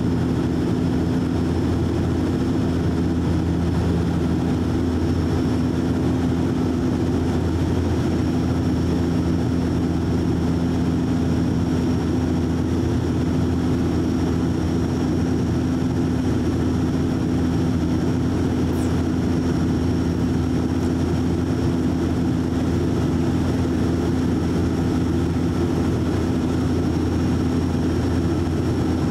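Steady cabin drone of a Bombardier DHC-8 Q400's Pratt & Whitney Canada PW150A turboprop engines and six-bladed propellers in flight, heard from inside the cabin beside the propeller: a deep even hum with a steady low propeller tone and a faint high whine over it.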